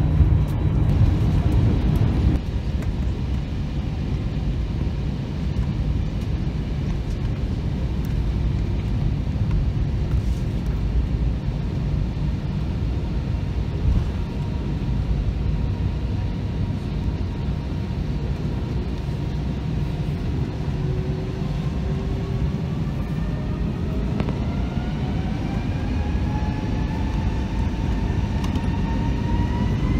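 Jet airliner engines heard from inside the cabin: a steady low rumble while the plane taxis. From about two-thirds of the way in, a whine rises steadily in pitch as the engines spool up for the takeoff roll.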